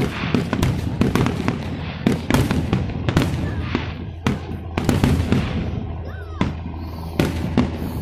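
Aerial fireworks shells bursting in a finale barrage: a rapid string of sharp bangs, several a second at times, over a continuous rumble.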